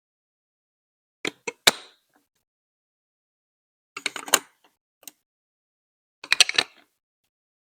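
Hard plastic Lego Duplo bricks clacking as they are set down and pressed together: a few sharp clicks about a second in, a quick rattle of clicks near four seconds, a single click, then another cluster near the end, with silence between.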